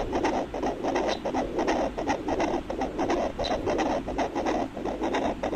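A fetal Doppler's loudspeaker giving out the ultrasound signal from a person's own heart: a continuous rough, crackly whooshing noise with no clear steady beat.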